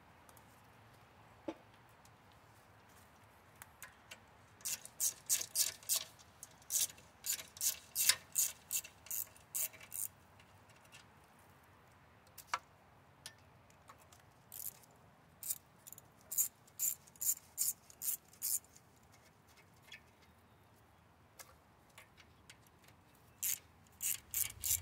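Socket ratchet clicking in quick runs of strokes as bolts are worked loose on an old engine's exhaust headers, with pauses between the runs and a few single metal knocks.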